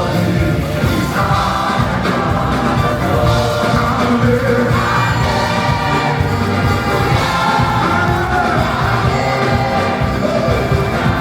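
Live gospel worship music: a band with bass and drums, and voices singing along.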